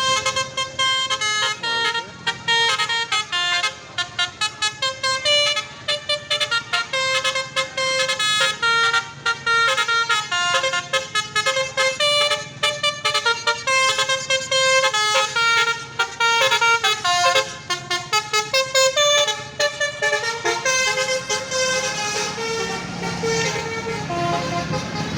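Bus telolet horn, a multi-tone 'basuri' air horn, playing a fast melody of short staccato notes that step up and down in pitch. A low engine rumble comes up near the end.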